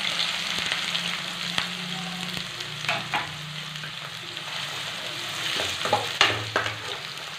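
Chopped onions sizzling in hot oil in a metal kadai, stirred with a metal spatula that scrapes and knocks against the pan a few times, about three seconds in and again near the end.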